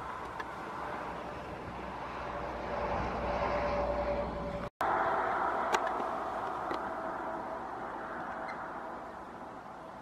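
Steady engine hum of a passing motor vehicle. It swells over the first few seconds, breaks off abruptly for a split second about halfway, then fades slowly. A few faint clicks are scattered through it.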